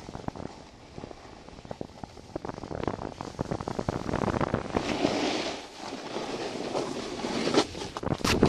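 Snowboard sliding and carving on groomed snow: a rough scraping hiss with crunchy chatter, mixed with wind rushing over the camera's microphone. It grows louder about three seconds in, with two sharp scrapes near the end.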